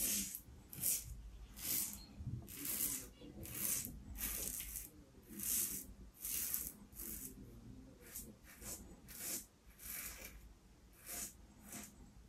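Double-edge safety razor with an Astra Stainless blade scraping through lathered stubble in short rasping strokes, about two a second, on a pass against the grain.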